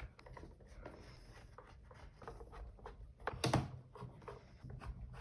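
Light clicks and scrapes of a hand screwdriver and plastic parts as the robot vacuum's housing screws are tightened, with one louder knock about three and a half seconds in.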